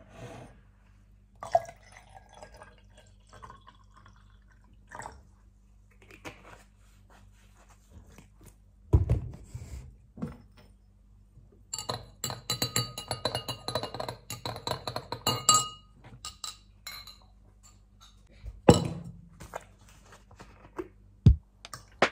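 A metal spoon stirring a drink in a tall glass, clinking quickly against the glass for a few seconds, with a couple of dull thunks of things set down on a counter before and after.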